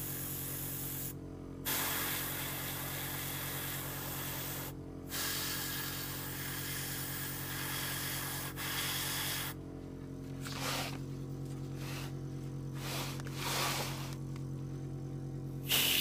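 Gravity-feed airbrush spraying flat black paint in a steady hiss of air that cuts out briefly twice, then comes in short bursts near the end as the trigger is worked, over a steady low hum.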